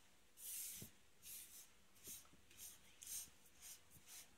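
Spoon stirring semolina roasting in ghee in a pan: faint, regular scraping strokes, about two a second.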